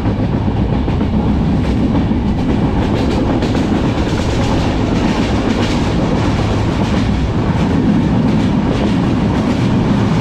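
Benapole Express passenger train running along the line, a steady loud rumble of wheels on the rails heard from inside the coach.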